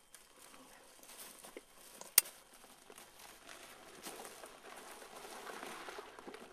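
Dry scrub branches and leaves rustling and crackling as a hunter pushes through dense brush, louder in the second half, with one sharp snap about two seconds in.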